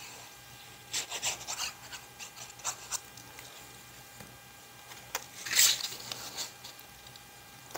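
Paper handling: a strip of patterned paper picked up and laid onto a glued cardstock strip, then rubbed flat with the fingers against the table. Scattered short rustles and rubs, the loudest about five and a half seconds in.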